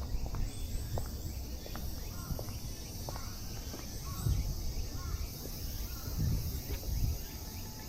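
Outdoor garden ambience: faint short bird chirps repeating about once a second over a steady low rumble and high hiss, with scattered soft ticks like footsteps.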